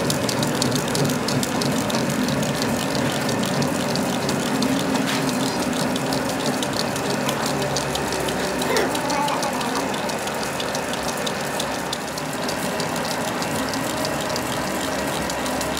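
Metal lathe running with a Sinotruk Howo truck front-wheel spindle turning in it, the cutting tool machining the steel near the spindle's threaded end. The lathe runs with a steady drone and a fast, dense ticking throughout.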